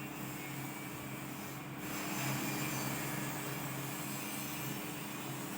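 Freshly repaired power amplifier driver board switched on with no signal, putting out a steady hiss over a low, steady hum.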